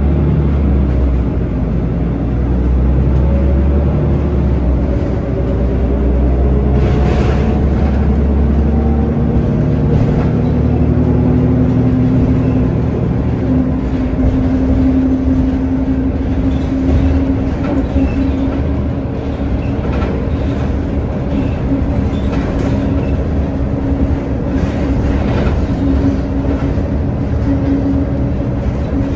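City transit bus heard from inside the passenger cabin, moving along the street. Its drivetrain whine rises in pitch as it picks up speed in the first half, then holds a steady whine over continuous road rumble, with occasional rattles.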